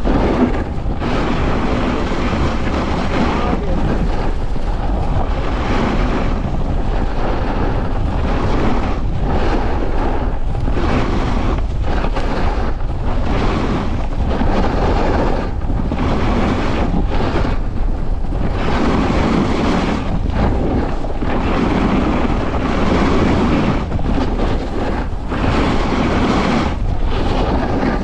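Snowboard edge scraping over chopped snow during a downhill run, rising and falling every second or two, with wind buffeting the microphone of a GoPro strapped low on the rider's leg.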